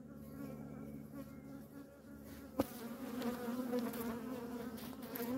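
Honeybees buzzing around the hive, a wavering hum from bees flying close past. There is one sharp click about two and a half seconds in.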